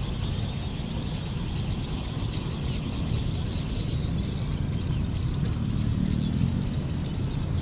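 Many small birds chirping and twittering without pause, high-pitched calls overlapping, over a steady low rumble.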